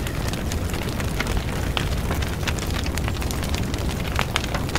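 Fire sound effect: a low rumble with many crackles and pops.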